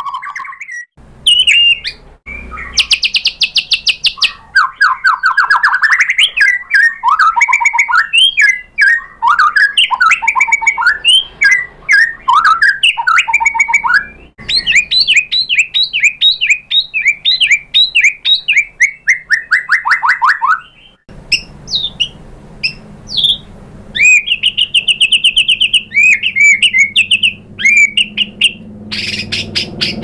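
White-rumped shama singing a long, varied song of rapid trills, chatters and whistled phrases. The phrases change abruptly every few seconds, showing off its repertoire of mimicked song material (isian).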